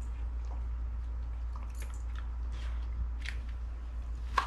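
Dog chewing and crunching dry kibble from an automatic feeder's tray: scattered short crunches, with one sharper click near the end, over a steady low hum.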